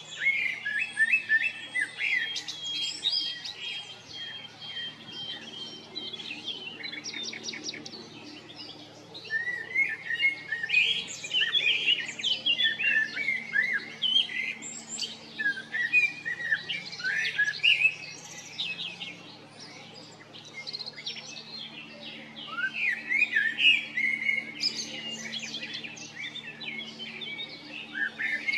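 Birdsong: a male common blackbird singing, mixed with the busy chirps and trills of other small birds.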